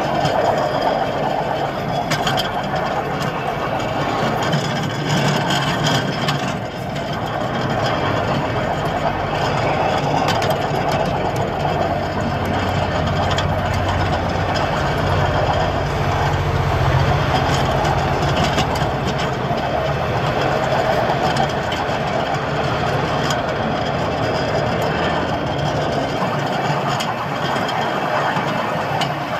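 Miniature railway train running along the track: a steady engine drone with a low rumble, and occasional short clicks from the wheels on the rails.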